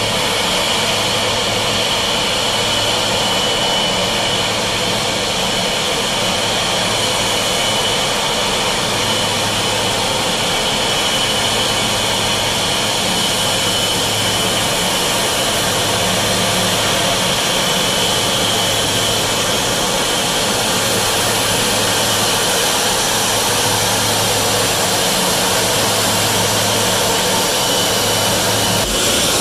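A Boeing 777-200ER's twin jet engines run at low taxi thrust as the airliner taxis in to its stand. The sound is a steady, loud rush with a high whine on top.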